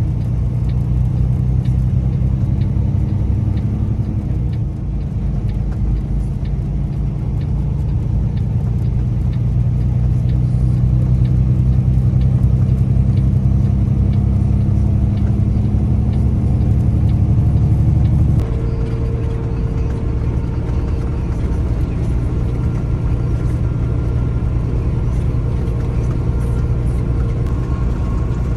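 Semi truck's diesel engine running, heard inside the cab as a steady low drone. About 18 seconds in it drops abruptly to a lower, quieter note and keeps running.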